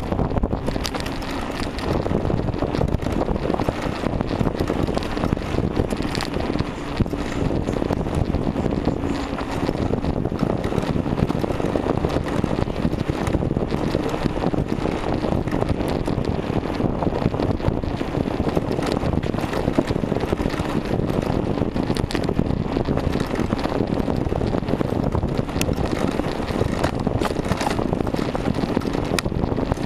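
Wind buffeting the microphone of a camera on a moving bicycle, a steady rushing rumble with frequent small clicks and rattles from the bike going over the road surface.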